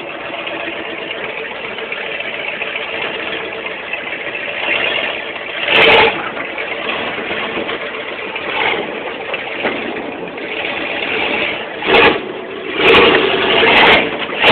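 1978 Ford F-150 pickup's engine running as the truck is driven off-road, a steady drone broken by brief loud surges about six seconds in and twice more near the end.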